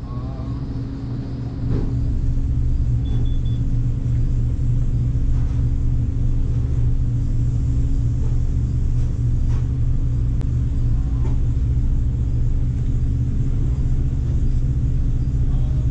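Steady low mechanical hum with several unchanging tones. It holds level throughout, with faint background voices.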